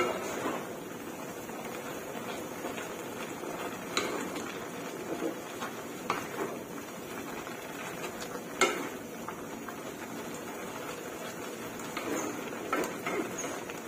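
Spatula stirring chicken giblets and vegetables in a wok, scraping through the curry, with a few sharp knocks of the spatula against the pan, the loudest about two-thirds of the way through, over a steady low hiss.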